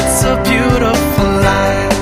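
Music: a country love song with guitar.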